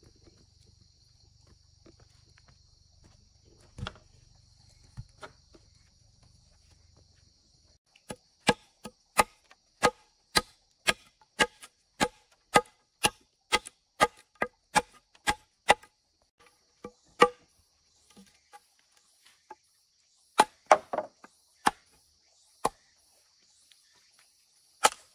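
A blade chopping into wood: about twenty quick, sharp strokes at two to three a second, starting about a third of the way in, followed by a few scattered chops.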